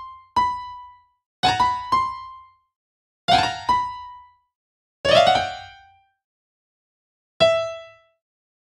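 Single electric-piano-like synth notes from a phone music app's piano roll, sounding one or two at a time with uneven pauses, each with a sharp attack that rings briefly and dies away. This is a melody being tried out note by note.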